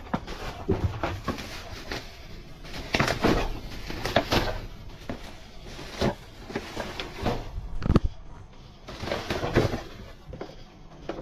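Plastic trash bags rustling and crinkling as hands rummage through them, with hard plastic containers knocking against each other as they are moved. A sharp knock about eight seconds in is the loudest sound.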